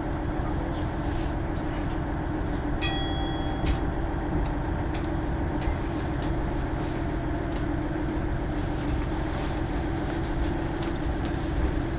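Steady low rumble of outdoor rail-yard noise with wind on the microphone, broken near the start by three short high electronic beeps and then one longer high beep of just under a second.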